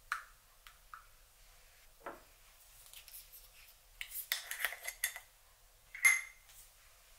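Metal ladle clinking and scraping against ceramic dishes while pumpkin soup is served: a few light taps, a busy cluster of scrapes and clinks about four seconds in, and one sharp ringing clink about six seconds in.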